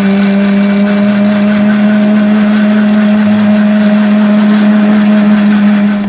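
Electric countertop blender running at full speed, grinding fried onions, yogurt and water into a smooth liquid paste: a loud steady motor hum that cuts off at the very end.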